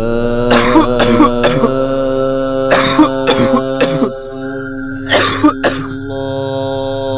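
A person coughing in short forceful bursts, in groups of two to four, over a steady droning tone.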